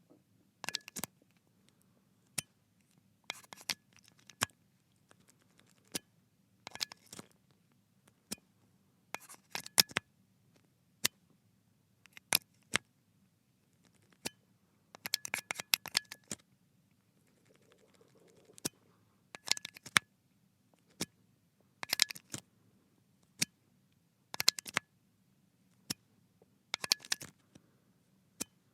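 USB connector repeatedly plugged into and pulled out of a computer's port: short clusters of sharp clicks and scraping as the metal plug slides in and seats or comes free, one every second or two.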